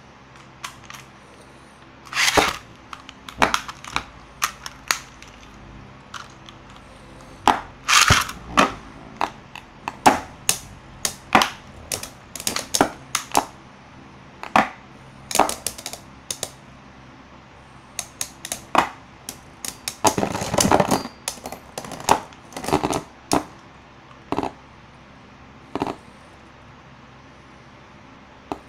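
Two Beyblade spinning tops clashing in a plastic stadium: irregular sharp clacks as the tops strike each other and the stadium wall, with a longer rattling run of hits a little past the middle.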